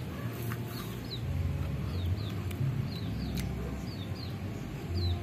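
Small birds chirping in the background: short, high, falling notes repeated every half second or so, over a low, uneven rumble.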